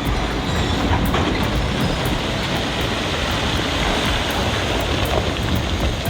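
Kobelco SK200 excavator working, a steady heavy machine noise with scattered clanks.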